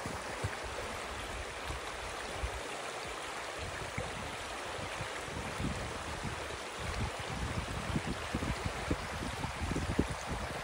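Creek water rushing and babbling over rocks in a steady wash, with irregular low thumps that come more often in the second half.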